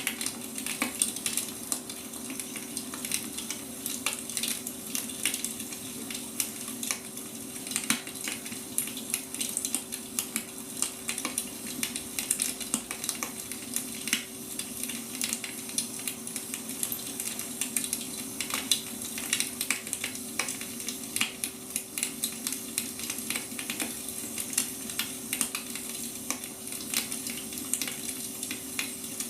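Wood fire crackling: a steady hiss with dense, irregular pops and snaps from burning firewood, over a constant low hum.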